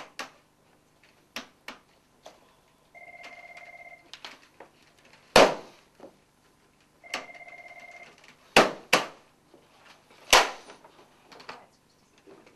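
Office telephone ringing in about one-second bursts, with hard sledgehammer blows landing between the rings; the loudest blows come about five, nine and ten seconds in.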